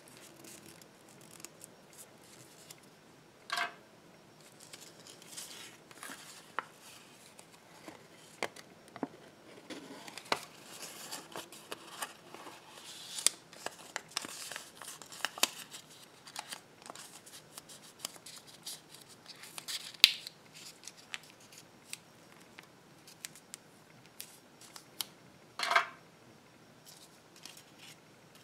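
Fingers unfolding small folded slips of stiff paper close to the microphone: crisp rustles and crinkles with many short sharp clicks of creasing paper. Two louder rasping rustles come a few seconds in and near the end.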